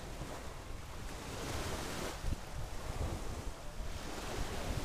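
Waves washing up on a beach, one wash swelling about a second and a half in, with wind buffeting the microphone.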